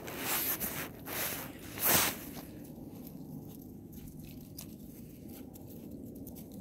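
Rustling and scuffing noise: a few loud swishes in the first two seconds, the loudest about two seconds in, then a low, steady rustle.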